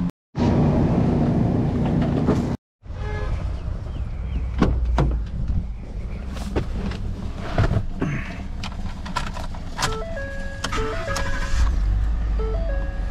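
A pickup truck's engine running at idle in the cab, with scattered clicks and a short run of stepped tones like a chime or music near the end. It follows a brief burst of noise at the start.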